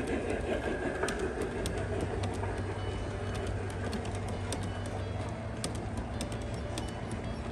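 G-scale model passenger coaches rolling along the track, a steady low rumble with irregular sharp clicks from the metal wheels over the rail joints.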